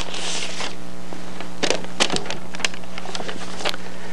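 Steady electrical hum from the recording under a short hiss at the start and a scattered few light clicks and rustles of paper as book pages are handled.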